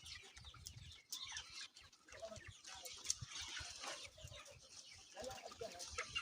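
A flock of chickens clucking and chirping, many calls overlapping, with scattered low thumps.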